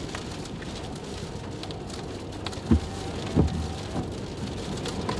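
Severe thunderstorm rain and wind as a steady rushing hiss, with two heavy low thuds about halfway through, under a second apart.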